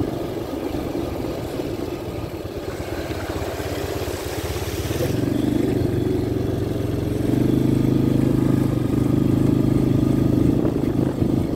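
Small ATV engine running while riding, softer for the first few seconds, then picking up about five seconds in and louder again from about seven seconds as the throttle opens.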